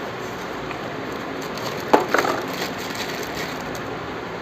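Hand tools clinking against the motorcycle engine while the oil filter is being removed: a short cluster of sharp metallic knocks about two seconds in, over a steady background hiss.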